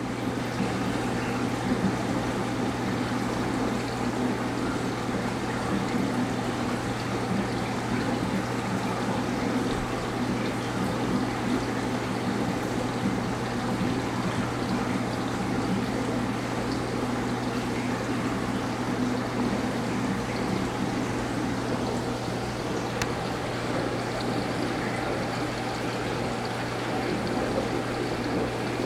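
Reef aquarium system running: a steady trickle and flow of water over a constant low pump hum.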